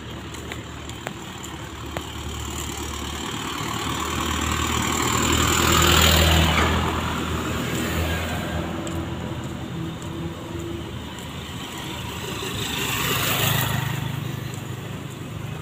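Motor vehicles passing close by on a street, one after another. Engine and tyre noise swell and fade, the first peaking about six seconds in and a second passing near the end.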